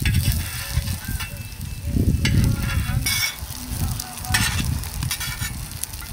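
Fish tikkis shallow-frying in oil in a pan, sizzling steadily, with a utensil scraping or stirring in the pan now and then, over a low rumble.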